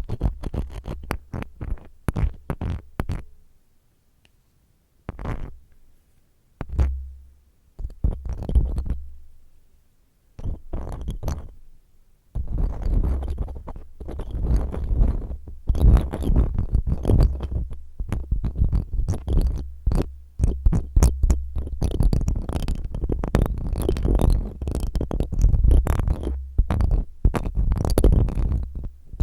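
Spiral ear cleaner rubbed and twisted roughly in a microphone's ear, giving dense crackling scratches over low rumbling. There are short quiet pauses in the first half, then unbroken working through the second half.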